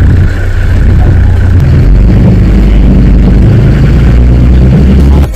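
Boat's engine running loud and low, its pitch rising about two seconds in as it picks up speed.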